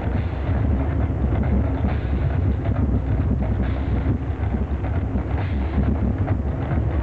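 A dense barrage of fireworks launching and crackling: a continuous heavy low rumble with many rapid, irregular pops and cracks, and no clear beat.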